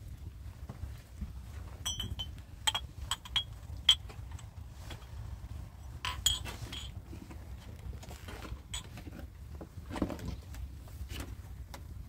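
Irregular knocks and light metallic clinks, bunched about two seconds in and again about six seconds in, over a steady low rumble.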